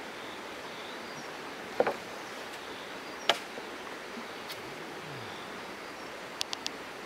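Steady hiss of flowing river water. About two seconds in comes a short sharp knock, and a second and a half later a sharp click, as a homemade bow is shot at fish from a bamboo raft. Three quick light ticks come near the end.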